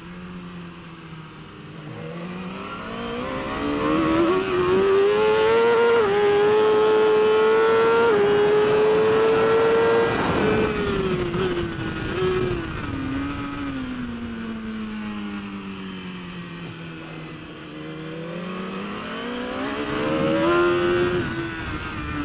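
BMW S1000RR superbike's 999cc inline-four engine at racing speed. The revs climb to a high, loud scream, broken by two quick upshifts, then fall step by step through downshifts under braking, and climb again near the end.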